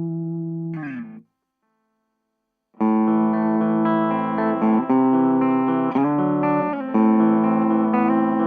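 Electric guitar with humbucker pickups played through an Orange Micro Terror valve-preamp amp head. A held chord fades and slides down in pitch, then cuts off about a second in. After a short silence, playing starts again with the amp's gain backed off: a run of single notes and chords.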